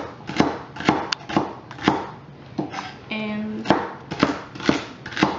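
Chef's knife chopping celery stalks on a plastic cutting board, about two steady chops a second, with a short pause about three seconds in. During the pause a brief steady pitched tone sounds.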